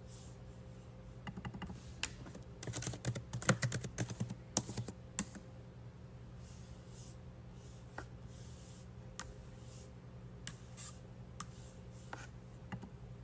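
Typing on a computer keyboard: a quick run of key clicks from about one to five seconds in, then scattered single taps, over a faint steady hum.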